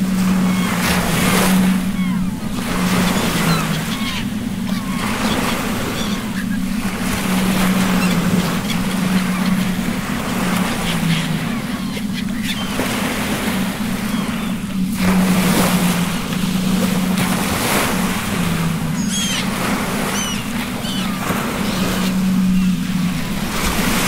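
Ocean waves surging and breaking in rough open sea, rising and easing every few seconds, over a steady low hum. Short faint bird calls come through now and then, a few at the start and a cluster about two-thirds of the way in.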